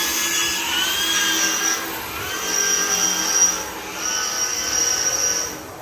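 A power tool whining in three bursts of about a second and a half each, its pitch rising as it spins up.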